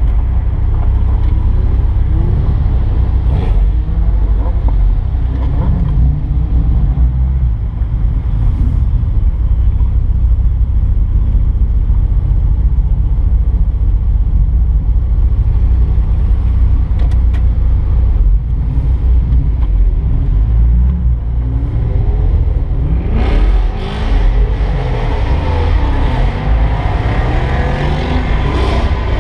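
Car engine idling with a deep, steady rumble, heard from inside the cabin. From about 23 seconds in, engine revs rise and fall as cars pull away.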